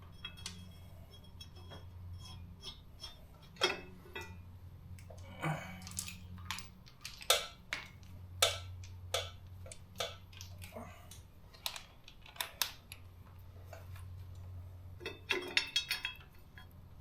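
Steel bolts, nuts and hand tools clinking and clicking against a steel plate at irregular intervals as bolts are started by hand, over a faint steady low hum.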